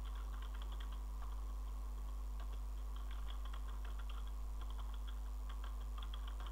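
Typing on a computer keyboard: a quick, irregular run of light keystroke clicks over a steady low hum.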